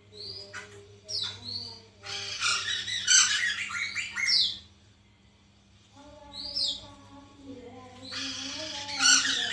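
Poksay mantel laughingthrush calling in bursts of quick whistled chirps and harsh squawks, with a short pause about halfway before the calling starts again.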